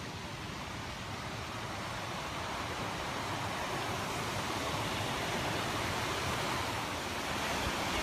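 Water pouring over a small weir: a steady rush that grows louder.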